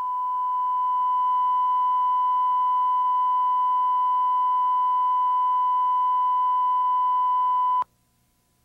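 Steady test tone of the kind recorded between spots on a commercial tape: one unbroken pitch held for nearly eight seconds, then cut off sharply about a second before the end.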